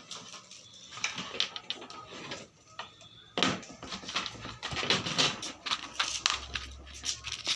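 Rapid small clicks and rustling from hands handling small parts and tools at a workbench, sparse at first and busier from about halfway.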